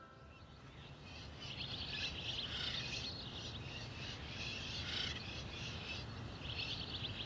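Faint recorded outdoor nature ambience: clumps of rapid, high chirping trills, every second or so, over a low steady rumble.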